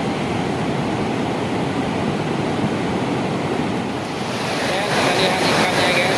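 Steady rushing of water pouring over a dam's waterfall, growing a little louder about five seconds in.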